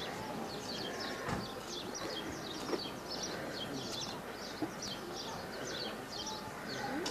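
Outdoor ambience of steady high chirping that repeats two or three times a second, with a few faint knocks.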